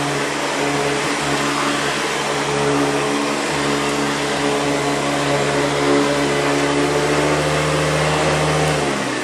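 Hoover Convertible upright vacuum cleaner running steadily on carpet with a steady hum. Near the end it is switched off and the motor winds down, its pitch falling.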